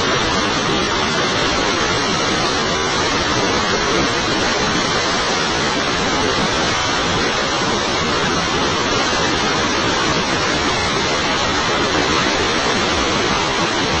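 Steady, loud roar of a waterfall in heavy, muddy flood, with the churning rapids below it.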